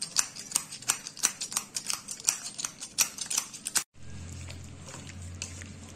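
Quick, irregular sharp clicks, several a second, as ground black pepper is added to marinating fish. After a cut about four seconds in, the clicking stops and a steady low hum remains while the fish pieces are mixed by hand.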